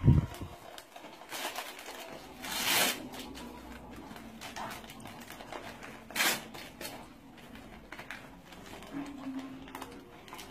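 Gift wrapping rustling and tearing in short bursts as a small child unwraps a present, with a low thump right at the start.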